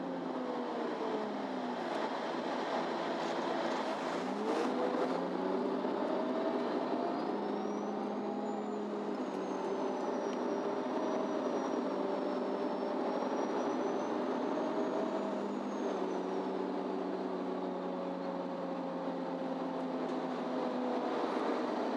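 Onboard a MAN Lion's City Ü (NÜ 323) diesel bus under way: the engine note drops, then climbs again about four seconds in as the bus picks up speed, and settles into a steady drone with a faint high whine rising and falling over it. Near the end the engine note dips and rises once more.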